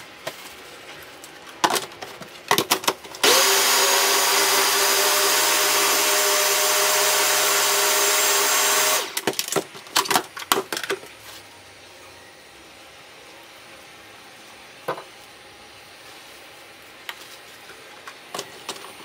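Electric food processor running at a steady pitch for about six seconds, puréeing chickpeas into hummus. Sharp plastic clicks and knocks of the jug and lid come just before the motor starts and again for a couple of seconds after it stops.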